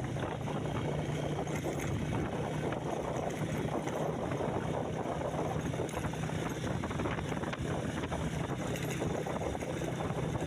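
A vehicle engine running steadily with a constant low hum, under wind noise buffeting the microphone.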